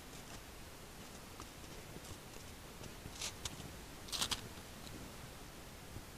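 Steady faint hiss of a trail camera's microphone with a few short crunches as a roe deer steps through snow right beside it, the loudest cluster a little after three seconds and again about four seconds in.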